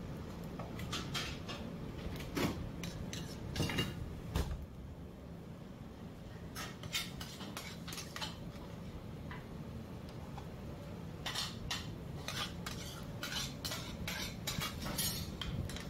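Metal kitchenware and dishes clinking and clattering in three spells of sharp clinks with short pauses between them, over a steady low hum.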